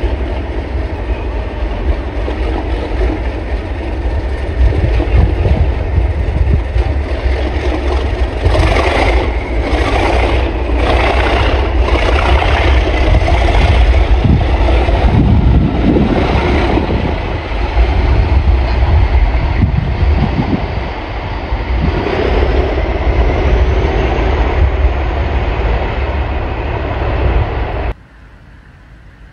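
West Coast Railways Class 37 diesel locomotive, its English Electric V12 diesel engine running with a heavy low rumble as it passes at close range. Its wheels knock in a steady beat of about one a second for several seconds in the middle. The sound cuts off suddenly near the end.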